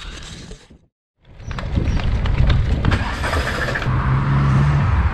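Steady motor-vehicle rumble that starts after a second of silence, with a low steady hum for about a second near the end.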